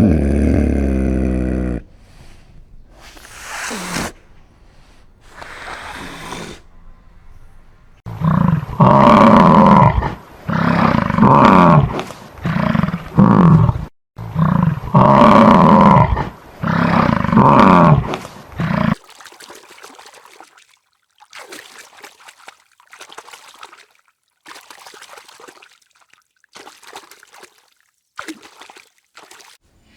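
A large animal's loud calls, a run of about seven, each lasting roughly a second, in the middle, with fainter short calls afterwards.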